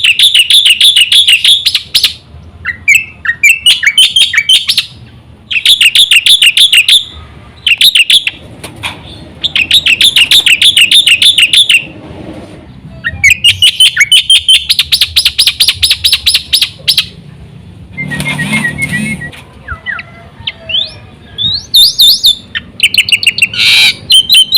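Black-winged myna (jalak putih) singing loudly: long runs of very rapid chattering notes in bursts of one to a few seconds, broken by short pauses, with a harsher, lower call about three-quarters of the way through.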